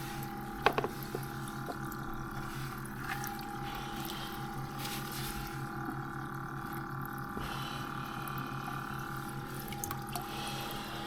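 A steady mechanical hum made of several constant tones, over a wash of water-like noise, with a couple of faint clicks about a second in.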